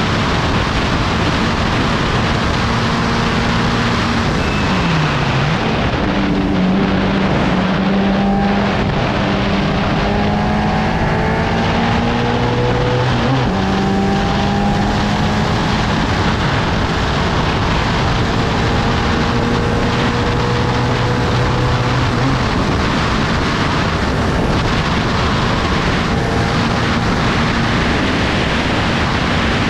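Onboard sound of a 750 Formula open-cockpit race car at racing speed: loud wind rush with the engine note running underneath. The engine pitch falls sharply about four seconds in as the car slows, then climbs again as it accelerates.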